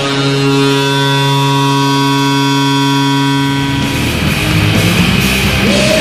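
Plymouth Whalers arena goal horn sounding one long, steady blast; about four seconds in, loud rock goal music starts up and takes over.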